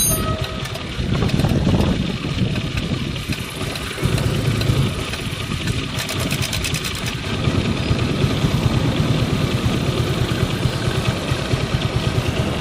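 Bajaj Avenger 150 Street's single-cylinder engine running, with the rattle of a loose or worn timing chain, its level rising a little about a second in and again around four seconds.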